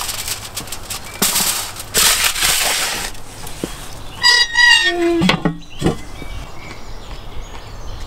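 Foil-covered baking tray slid into a brick oven with a crinkling scrape, then the oven's metal door swung shut: a drawn-out squeal, falling in pitch at the end, followed by a dull clank.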